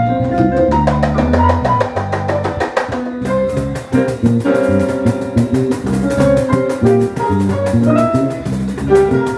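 Live jazz trio of hand-played cajon, electric bass guitar and electronic keyboard. The cajon keeps a fast, steady rhythm of strokes under the bass line and the keyboard's melody and chords.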